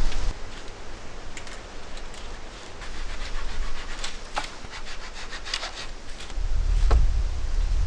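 Branches and sticks being handled and dragged, with irregular wooden scraping, rubbing and sharp cracks, while a shelter is built. A low rumble comes in again about six seconds in.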